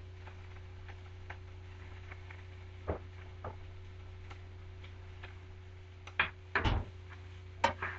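Chicken and vegetables heating in a dry, oil-free pan, giving scattered faint ticks and pops over a steady low hum. Near the end come a few louder knocks and clatter, like a utensil against the pan.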